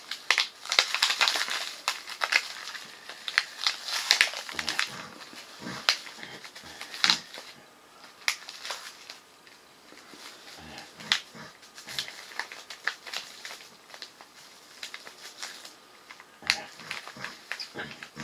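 Plastic food packaging being crinkled, crackled and pulled at by hand as someone struggles to open it, with scattered light knocks on the table.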